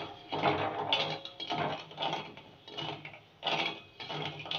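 A slotted steel ladle stirring and scraping undissolved sugar and water across the bottom of an aluminium kadai, in a gritty scrape of about two strokes a second.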